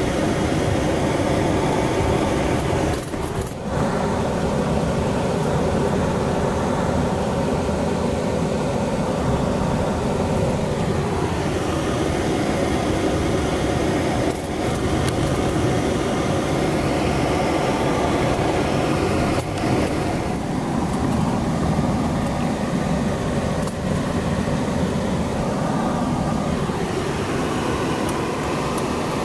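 Car driving on a snow-packed street, heard from inside the cabin: a steady rumble of engine and tyres, with the engine note falling a couple of times as the speed changes.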